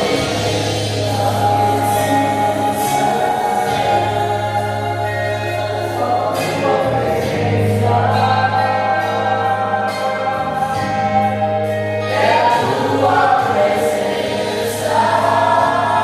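Choir singing a gospel hymn with instrumental accompaniment, over long held bass notes that change every couple of seconds.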